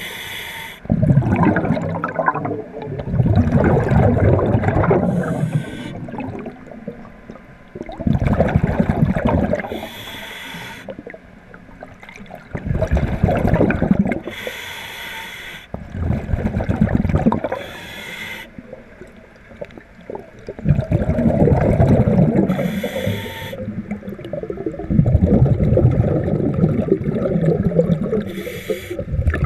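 A diver breathing through a scuba regulator underwater: a short hissing inhalation roughly every four to five seconds, each followed by a longer rumbling rush of exhaled bubbles.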